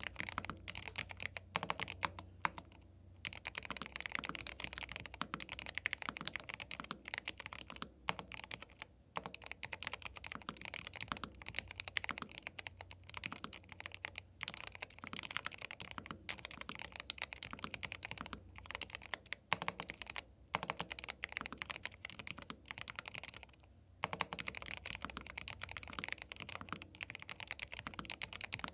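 Fast, continuous typing on a YUNZII B75 Pro gasket-mount 75% mechanical keyboard with Milk linear switches: a dense stream of keystroke clicks, broken by a few short pauses.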